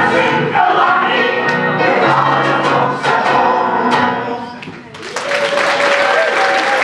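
Mixed choir of men and women singing the closing phrase of a song, then the audience bursts into applause about five seconds in.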